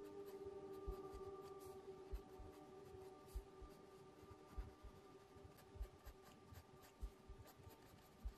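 Mechanical pencil scratching short, uneven sketching strokes on sketchbook paper, one or two strokes a second, over faint, steady background music.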